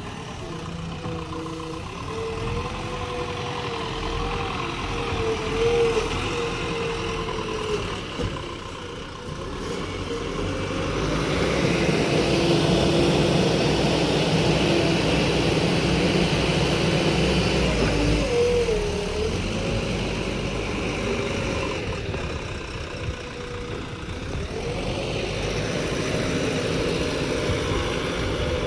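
Heavy vehicle's diesel engine running, its pitch wavering up and down. It grows louder about a third of the way in, as if revved or put under load, then settles back.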